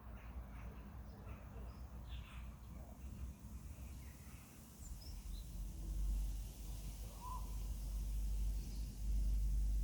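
Outdoor nature ambience with scattered faint bird calls, including short chirps and a brief whistled note about seven seconds in, over a steady low rumble that gets louder near the end.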